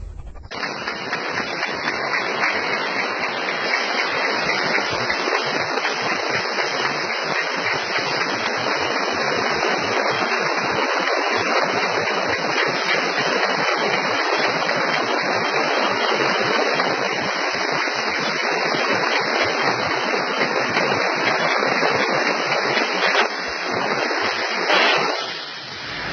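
Metal laser-cutting machine at work: a loud, steady hiss that dips and surges briefly near the end.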